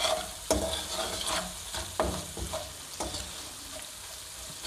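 Ginger and red chilli flakes frying in hot desi ghee in a non-stick kadhai, a steady sizzle, while a spatula stirs them and knocks against the pan several times.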